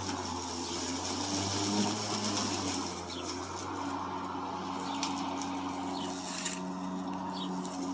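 Lawn mower engine running steadily, its hum shifting slightly in pitch about three seconds in, with faint bird chirps over it.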